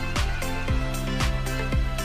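Electronic background music with a steady kick-drum beat of about two beats a second over sustained synth tones.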